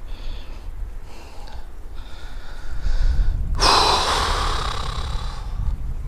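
A man breathing hard, with a long, loud exhale starting about three and a half seconds in: a sigh of disappointment after losing a hooked fish.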